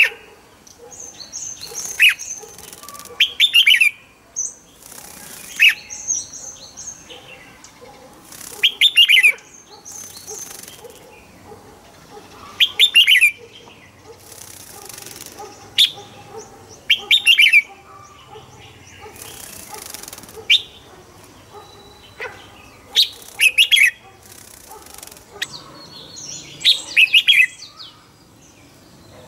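Red-whiskered bulbul singing short, bright phrases of a few quick sliding notes, about ten times, every couple of seconds. Between the phrases come several brief bursts of rustling, like wing flutters.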